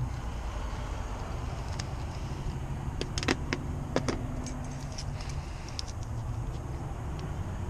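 Sharp little metal clicks and taps from a screwdriver and lock hardware being handled, a cluster of them about three to four seconds in and lighter ticks after, over a steady low rumble.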